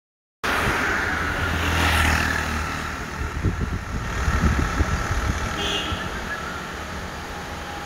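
Road traffic: a vehicle passing on the road, its noise swelling to a peak about two seconds in and fading, over an uneven low rumble; the sound starts abruptly after a brief silence.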